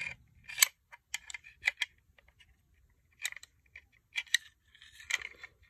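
Sharp metal clicks and scrapes of a Romanian AK-47 bayonet being worked against its steel scabbard to form the wire-cutter scissors. The clicks come in several short clusters.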